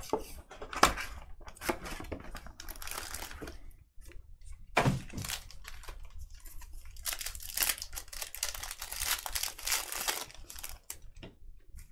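Wrapping from a pack of Revolution basketball cards being torn open and crinkled by hand: irregular rips and rustles, busiest from about seven to ten seconds in.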